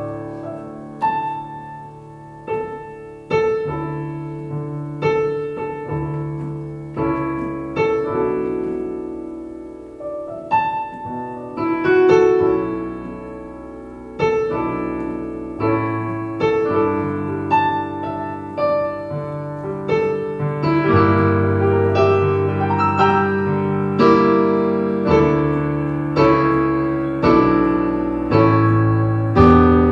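Solo piano playing slow, sustained chords over deep bass notes, louder in the second half.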